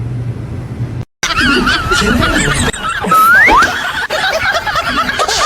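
A low steady hum, then after a sudden break, high-pitched wavering giggles of laughter, with a short rising squeal partway through.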